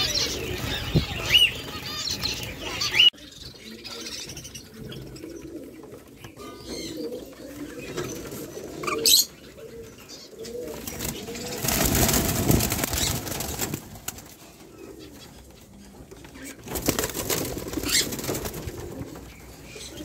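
A flock of caged zebra finches chirping for the first few seconds. Then, after a cut, cockatiels in an aviary cage, with scattered calls and two bouts of wing-flapping, one about twelve seconds in and one about seventeen seconds in.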